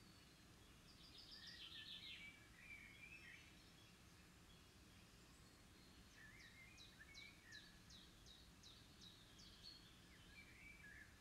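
Faint outdoor background with distant songbirds chirping and twittering; in the second half one bird gives a fast run of short, high notes that each drop in pitch, about four a second.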